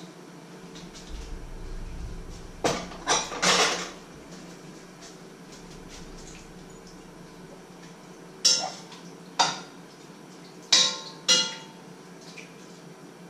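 Metal kitchenware clattering: pots, pans and utensils being handled, with a quick cluster of three knocks about three seconds in, then four sharp clanks between about eight and eleven and a half seconds, the last two ringing briefly.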